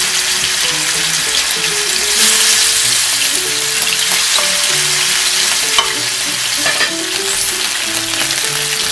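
Beef steaks searing in a grill pan of oil heated to smoking: loud, steady sizzling and spitting. Metal tongs moving the meat give a few light clicks.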